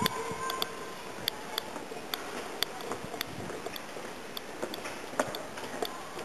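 Footsteps on a granite walkway: sharp, irregular clicks roughly twice a second, with faint distant voices.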